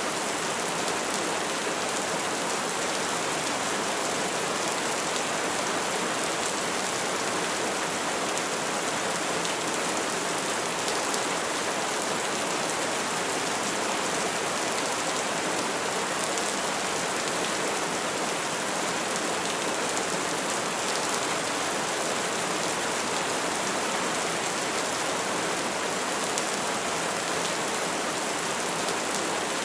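Steady rain falling and pattering on surfaces: an even, unbroken hiss with no thunder.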